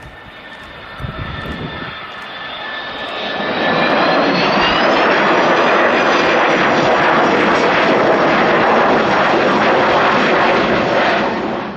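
Everts Air Cargo DC-9's twin Pratt & Whitney JT8D turbofans spooling up for takeoff: a whine rises in pitch over the first few seconds, then the engines run at full takeoff power in a loud roar as the jet accelerates down the runway. The roar drops off abruptly near the end.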